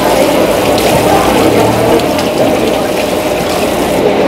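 Water from a hand-held spray nozzle on a hose hissing and splashing as a piece of raw fish is rinsed under it on a wet wooden cutting board. The spray stops near the end.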